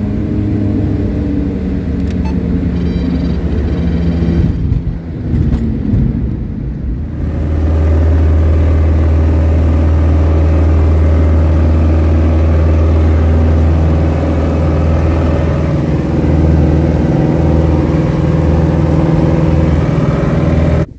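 Single-engine light bush plane's piston engine and propeller heard from inside the cabin, running at moderate power, then opened up to full power about seven seconds in for the takeoff roll and climb-out: a loud, steady low drone.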